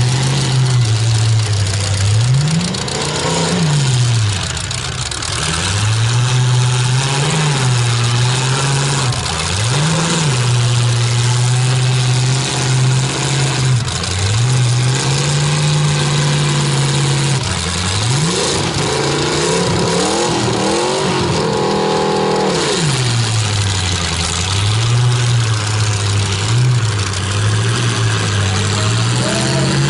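Demolition derby trucks' engines revving loudly, the pitch rising and falling over and over as the drivers accelerate and back off, with one long climb to a high rev about two-thirds of the way through.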